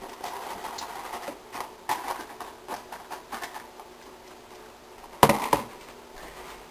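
Light clicks and taps of a microwavable bowl of crushed ramen and water being handled, with one louder knock about five seconds in.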